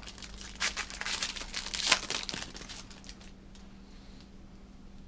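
Trading card pack wrapper crinkling and being torn open, busiest in the first two seconds with a sharp crackle near the end of that stretch, then only a few faint rustles.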